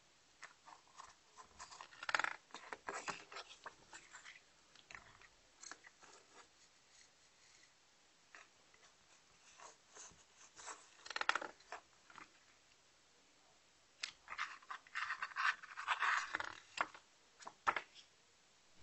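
Hands handling a CD package and its contents: irregular crinkling, rustling and small clicks. There are louder flurries about two seconds in, around ten to eleven seconds, and again from about fourteen to seventeen seconds.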